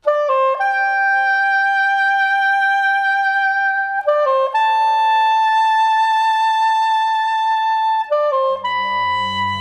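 Music: a solo wind instrument plays three phrases, each a few quick notes rising into a long held note. A low accompaniment enters near the end.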